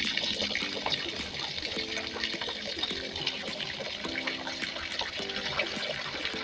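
Water tap running in a steady stream, with wet clothes being scrubbed and sloshed by hand in a plastic basin of water, giving many small splashes.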